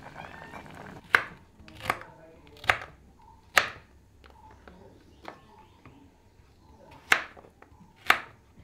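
Knife chopping vegetables on a cutting board: single sharp strokes about a second apart, four in a row, a pause of a few seconds, then two more.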